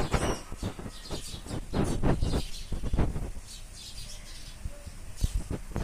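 Small songbirds chirping in short, repeated high notes, several at once. Louder low rushing noises come and go three times in the first half.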